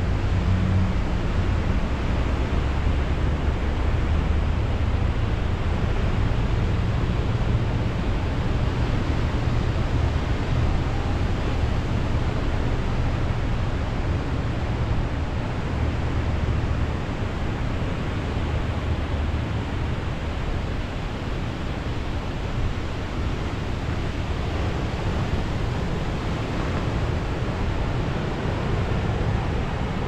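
Ocean surf breaking on the shore below, a steady wash of noise, with wind rumbling on the microphone.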